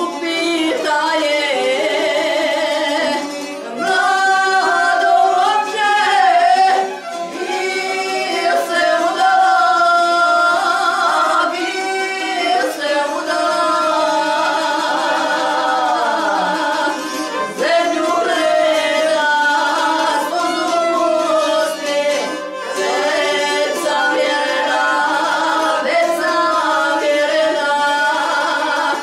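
Two women singing a traditional Croatian izvorna folk song together, in phrases with short breaks, accompanied by violin and a plucked string instrument.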